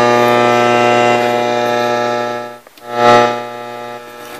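Loud, steady electrical buzz with a low hum under it from the speaker of a Sony Mega Watchman FD-555 portable TV/radio switched to radio. It cuts out for a moment a little past halfway, comes back loud, then settles to a quieter hum. The owner takes its function slider switches to be in need of repair.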